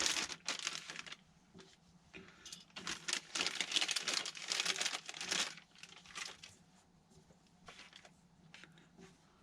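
Plastic packaging crinkling and rustling as small parts are handled, in two spells, the longer one from about three to five and a half seconds in, followed by a few light clicks.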